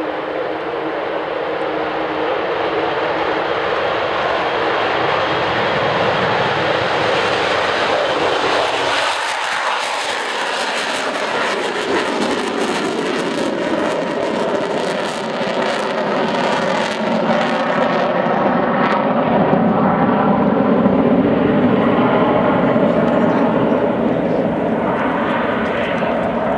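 Avro Vulcan's four Rolls-Royce Olympus turbojets at take-off power as the bomber climbs away: a loud, steady rushing jet noise. From about halfway, several steady droning tones show through the rush.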